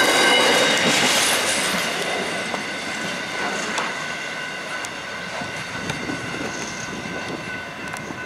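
Container freight train's wagons rolling by, wheels squealing with several steady high tones over the rumble and a few sharp clicks over the rail joints, gradually fading as the train moves away.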